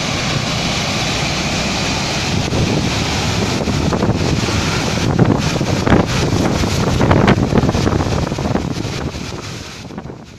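Steady roar of a landslide, earth and mud pouring down a hillside, with wind rushing on the phone's microphone. It grows louder with a few knocks as the phone is moved, then fades out near the end.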